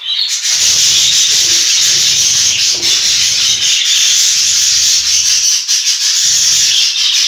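Loud steady rubbing noise from something brushing against the recording device's microphone, with low dull bumps that come and go underneath.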